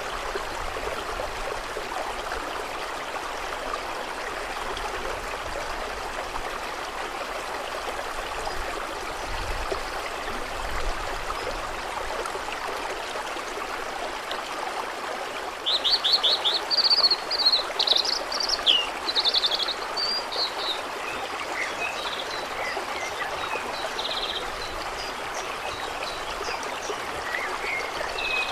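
Steady rush of flowing water. About halfway through a songbird sings a loud phrase of rapid trills and chirps, followed by fainter scattered calls.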